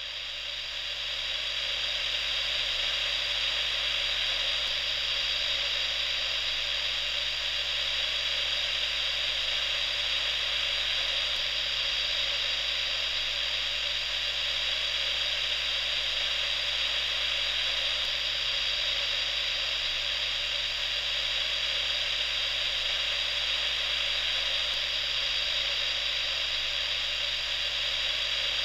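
Steady radio static, a hiss with thin high whistles running through it and a faint mains hum underneath, fading up over the first two seconds.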